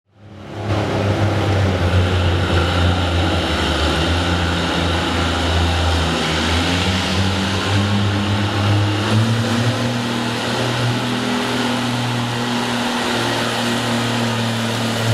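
Oliver pulling tractor's engine running hard under load as it drags a weight-transfer sled, a steady drone that fades in at the start and climbs slightly in pitch about two-thirds of the way through.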